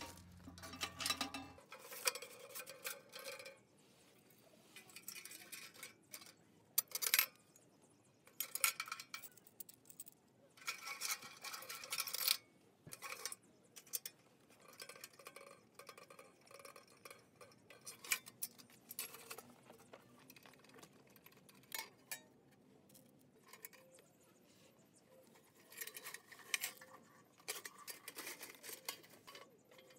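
Metal clanks, knocks and scrapes as a small sheet-metal camping stove and its parts are handled: irregular, with some short ringing, and several louder clanks in the first half.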